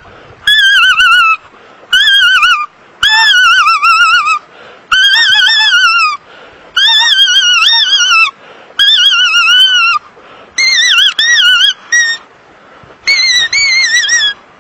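A loud, high-pitched wavering cry repeated about eight times, each cry about a second long, with short gaps between.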